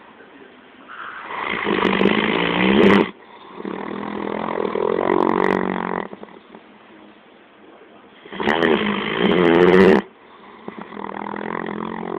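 A dog snoring loudly: two snoring breaths, each a loud snore that cuts off abruptly, followed by a quieter, longer breath.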